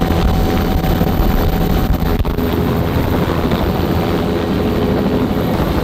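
Helicopter turbine and rotor running loud and steady at close range, heard through the open door with wind buffeting the microphone.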